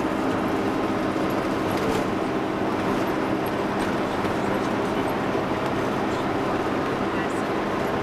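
Steady engine hum and road noise of a car driving at an even speed.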